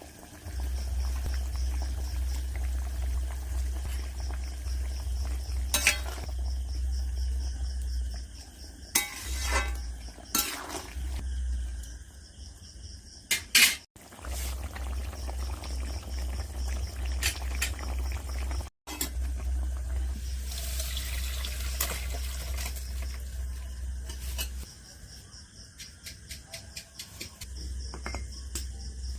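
Cooking a fish curry in a pan: a metal spoon or spatula clinks and scrapes against the pot as liquid is stirred and poured, with scattered sharp knocks over a steady low hum.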